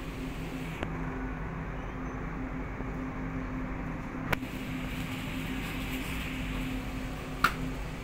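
Steady hum of supermarket glass-door freezer cabinets and ventilation: a low drone with a faint hiss. Two short sharp clicks cut through it, a little past halfway and near the end.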